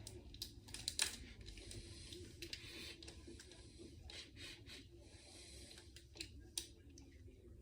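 Faint handling noise: light rubbing with a scattering of small clicks and taps as a shortbread cookie is handled in the fingers, the loudest click about a second in.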